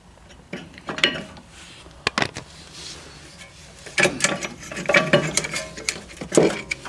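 Metal clinks and knocks of a rear brake caliper being fitted back over the pads onto its bracket, with a close run of clinks between about four and five and a half seconds.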